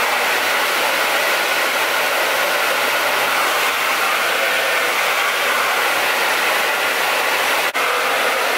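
Hand-held hair dryer with a diffuser attachment running steadily, blowing air through wet curly hair. The sound drops out for a moment near the end, then resumes.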